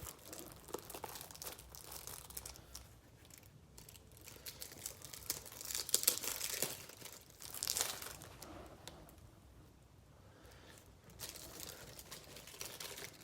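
Plastic wrapping on trading card packs being crinkled and torn, in irregular rustling bursts, loudest about six and eight seconds in.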